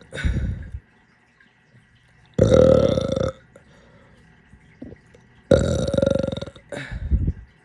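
A person burping repeatedly, four burps in all: a short one at the start, long ones of about a second each at about 2.5 s and 5.5 s, and a short one near the end, with quiet pauses between.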